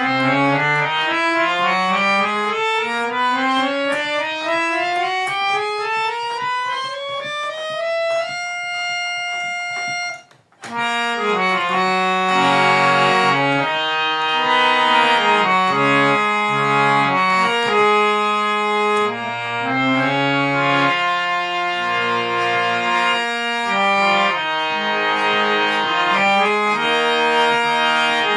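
Harmonium played after a repair touch-up: a scale of notes stepping steadily upward for about eight seconds, one note held, a brief break, then chords and a melody.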